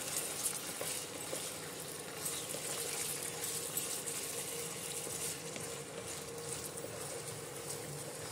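Boneless chicken pieces sizzling steadily in hot oil in a nonstick kadhai on high heat, with fine crackling throughout and a faint steady hum underneath.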